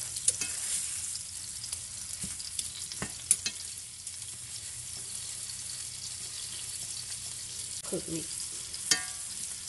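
Slices of gyro meat sizzling in rendered fat in a cast iron skillet, a steady frying hiss, with several sharp clinks and scrapes from a slotted metal spatula working the slices in the pan; a last clink comes near the end.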